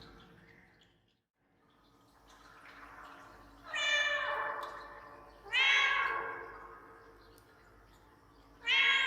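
Domestic cat meowing three times, insistently, with an added echo making each meow trail off slowly. The first meow comes a little before the middle and the last near the end.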